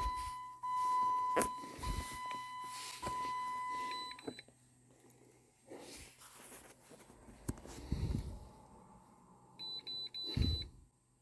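A steady electronic beep tone held for about four seconds with brief breaks, then stopping. Near the end come four quick, higher-pitched beeps.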